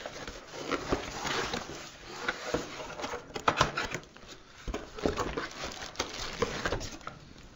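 Cardboard packaging being handled and opened: the box and its inner insert rub, scrape and knock in an irregular run of rustles and light clicks, with some crinkling of plastic wrapping.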